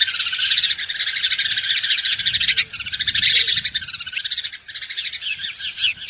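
Birds chirping in a dense, continuous high-pitched chorus, with single falling chirps picking out of it in the second half.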